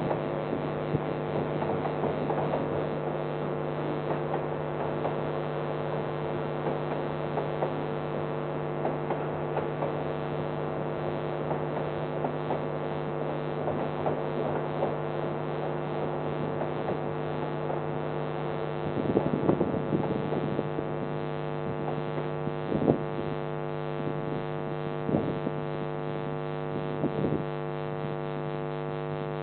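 Steady electrical mains hum in the security camera's audio, with a few short knocks in the second half.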